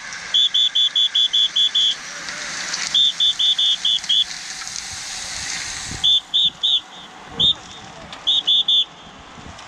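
A peloton of racing bicycles sweeping past, the whirr of tyres and freewheels swelling and fading. Over it, a shrill signal sounds in quick runs of short blasts, about six a second.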